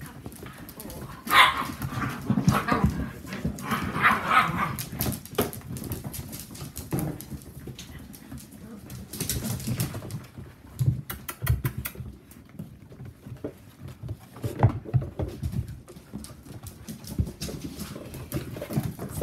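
Whippet puppies play-fighting with an adult dog on a hard floor: scuffling, with claws clicking on the floor and short barks about 1.5 and 4 seconds in.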